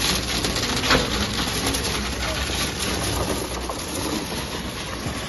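Putzmeister concrete boom pump running as concrete is pumped out through the end hose: a steady mechanical noise with a low hum, and one sharp knock about a second in.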